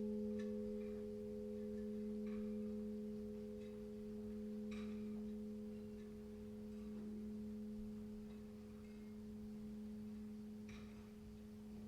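Church bell humming on after a strike: a few low tones fade slowly, swelling and ebbing in loudness every couple of seconds.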